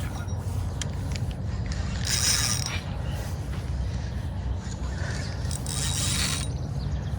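Fishing reel working with a mechanical ratcheting sound over a steady low rumble, with two short hissing bursts about two and six seconds in.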